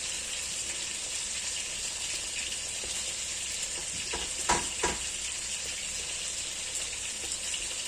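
Kesra flatbread dough cooking on a hot tajine griddle: a steady sizzling hiss, with two light knocks about halfway through.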